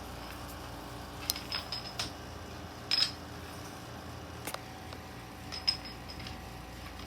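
A few light clicks and brief metallic jingles, scattered and irregular, over a steady low hum.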